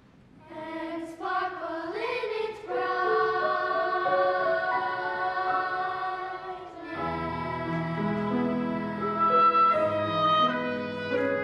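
Girls' choir singing sustained chords, entering after a brief pause. About seven seconds in, a piano joins with low notes under the voices.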